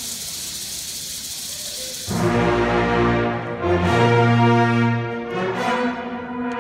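School concert band playing: a high ringing wash holds for about the first two seconds, then the band comes in loudly with sustained brass chords over low notes, with bright accents on top.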